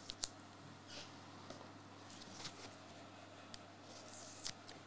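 Faint handling of trading cards on a desk mat: a few short, quiet clicks and brushes of card stock being picked up and shuffled.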